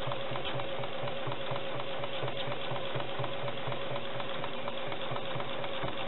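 Sewing machine running steadily while free-motion stipple quilting, the needle stitching at an even, rapid rhythm over a steady motor whine.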